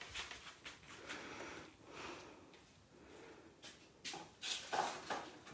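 Soft handling noises: faint rustling and a few short knocks, a cluster of them about four seconds in, as objects and craft packaging are picked up and moved around a table.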